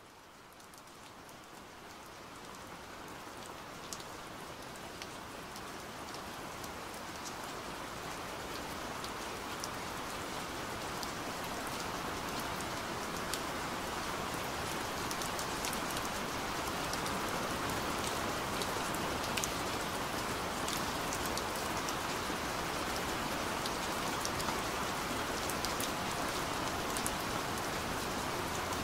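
Steady rain-like noise with scattered small ticks, fading in over the first ten seconds or so and then holding level.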